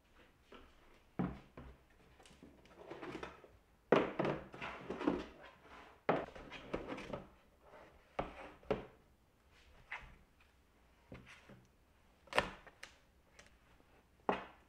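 IKEA SOCKERBIT hard plastic storage boxes and lids being handled: a string of sharp knocks and clacks as lids are lifted and boxes are set down, with rustling from mesh laundry bags in between.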